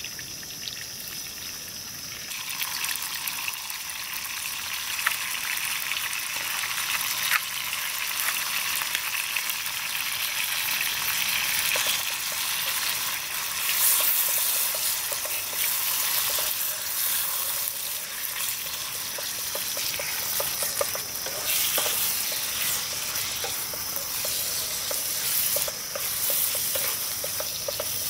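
Green chili sambal and squid sizzling in a hot frying pan on a portable butane stove. The sizzle starts about two seconds in, as the sambal hits the pan, and runs on while a wooden spatula stirs and scrapes the mixture.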